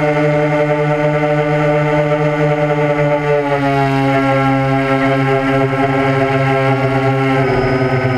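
Multirotor UAV's electric motors and propellers whining steadily with several pitches at once, the pitches shifting about three seconds in and again near the end as the aircraft manoeuvres.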